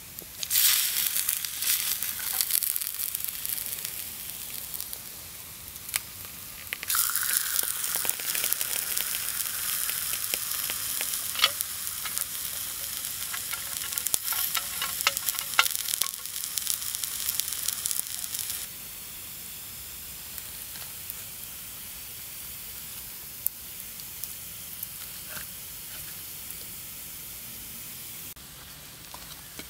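Steak frying in a hot clay pan over a campfire: a loud sizzle full of small crackles starting about half a second in. Well past halfway it drops abruptly to a quieter steady hiss.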